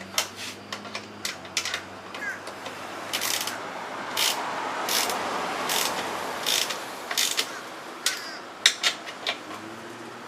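Hand ratchet wrench clicking in short runs while bolts on a motorcycle's rear fender are tightened, with knocks of tools and metal parts between strokes.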